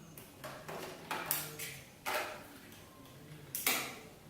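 A few short plastic clicks and knocks of a battery pack being fitted into a Sony NX200 camcorder, with the loudest click about three and a half seconds in.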